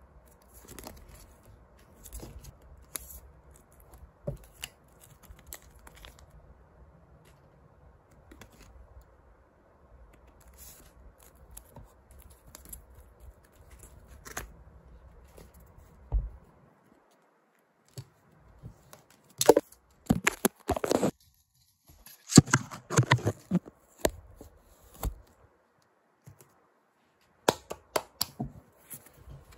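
Clear plastic photocard sleeves and paper being handled, rustling and crinkling; quiet at first, then several louder bursts of rustling from about twenty seconds in.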